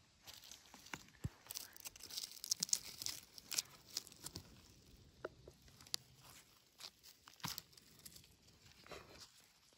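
A hand digging a porcino out of the forest floor, stirring dry leaves, pine needles and twigs: irregular crackling and rustling, busiest in the first few seconds and sparser after.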